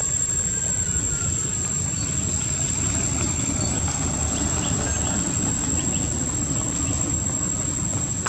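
A steady, high-pitched insect drone, one unbroken tone, over a constant low rumbling noise.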